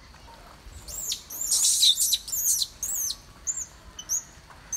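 Small birds chirping: a quick run of high, downward-sliding chirps that is thickest a second or two in, then thins to single chirps.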